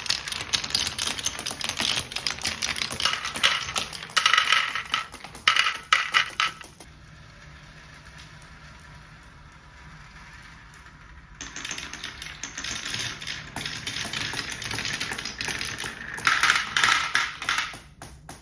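Marbles clattering down a wooden marble run track as a dense stream of rapid clicks and clacks. The clicking dies down to a quiet patch for a few seconds midway, then picks up again, with the loudest clusters of clacks before and after the lull.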